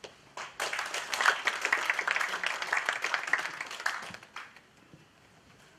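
Audience applauding: a few scattered claps, then full applause from about half a second in that dies away after about four seconds.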